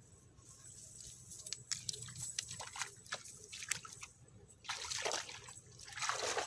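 Shallow river water sloshing and splashing as a person wades through it, with scattered drips. The biggest splashes come near the end, about a second apart.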